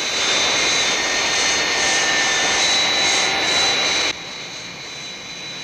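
Jet airliner engines running steadily with a high whine, then dropping abruptly to a quieter background about four seconds in.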